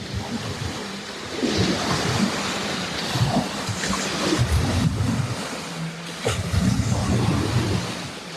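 Wind buffeting the microphone with small lake waves lapping at the shore, and a low steady hum coming and going.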